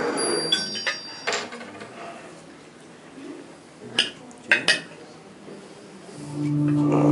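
A few sharp clinks in a quiet hall, three close together about four seconds in. Near the end, music starts over the loudspeakers with a steady held low drone.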